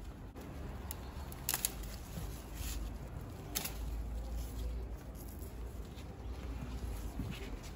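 Scissors snipping through a squash vine stem, giving a few sharp clicks, with leaves and vine rustling as the long squash is pulled free, over a steady low rumble.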